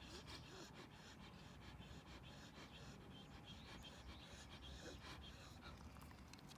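Near silence with faint clicks and light scratching, and soft panting from a Shiba Inu dog.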